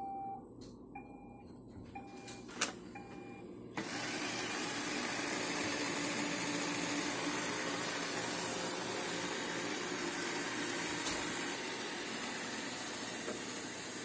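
A few short electronic beeps about a second apart, then, about four seconds in, the Roomba 676 robot vacuum's suction motor and brushes start up and run with a steady whir on carpet.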